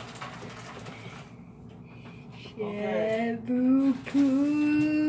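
A voice humming: faint room noise at first, then about two and a half seconds in a hummed note that steps upward in pitch a few times and settles into one steady held tone.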